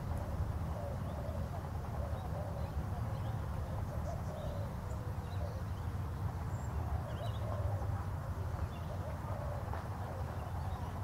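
Outdoor ambience: a steady low rumble with a faint wavering murmur and scattered faint, short bird chirps.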